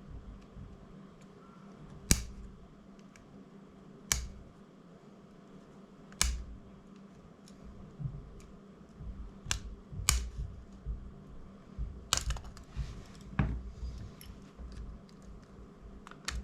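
Sharp clicks and taps of small hand tools against the drone's frame and parts as the silicone-held LED is worked loose, about every two seconds at first, then more irregular, with fainter ticks and scraping between.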